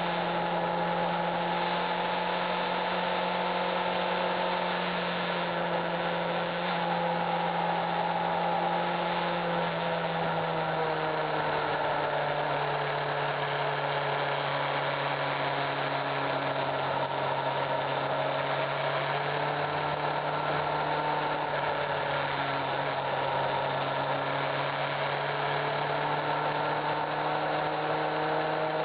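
Motorcycle engine, likely the Honda CBF600's inline-four, running steadily while riding. Its note drops a little about ten seconds in, over a steady rush of noise.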